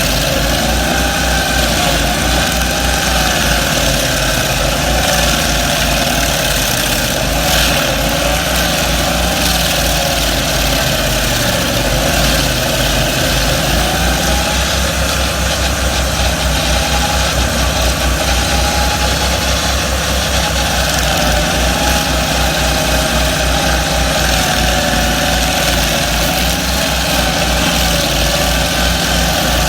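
Twin-engine stump grinder running steadily under power, its engine pitch wavering up and down as the engines load and recover while it grinds a stump.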